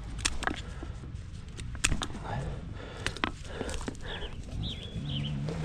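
Scattered sharp knocks and clicks, irregularly spaced, from hands and tools working a stick into a hole punched in a dirt bike's exhaust pipe. Faint voices can be heard in the background.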